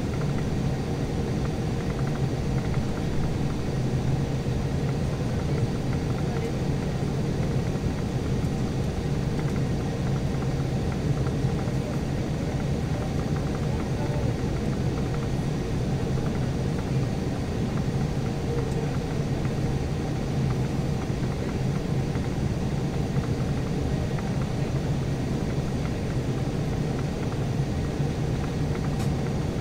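Steady low rumble of an Embraer E175 regional jet, heard from inside the cabin while the aircraft is on the ground after landing.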